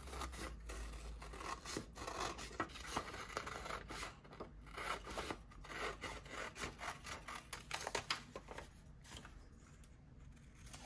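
Scissors cutting paper: a run of short, irregular snips and rustles that thin out near the end.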